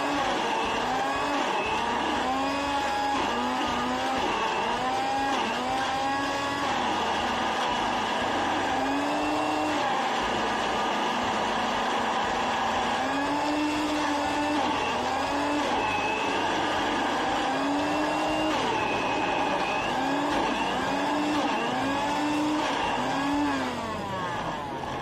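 Countertop blender motor running at full speed, blending a red fruit smoothie. Its pitch keeps rising and dipping in arches, and it winds down about a second before the end.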